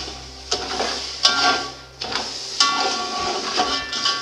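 Metal spoon stirring and scraping a steel cooking pot, knocking against it in three sharp clanks that ring on briefly, over the sizzle of sugar melting in hot oil and milk.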